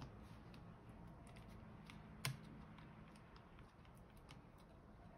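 Faint clicks and taps of fingers pressing on the circuit board and parts of an opened tablet scan tool, with one sharp click about two seconds in.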